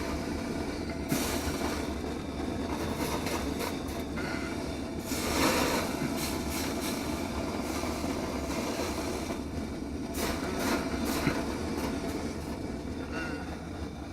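Handheld gas blowtorch flame burning with a steady rushing noise, used for sweat-soldering copper pipe fittings. A few short louder scrapes come about a second in, around five and a half seconds and around ten seconds.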